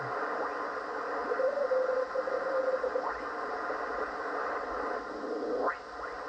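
Single-sideband receiver static hissing from a Yaesu FT-710 transceiver as its dial is tuned down through the 60-metre band. A steady whistle sounds for about two seconds, and two quick rising whistles come near the middle and near the end as the tuning sweeps past carriers.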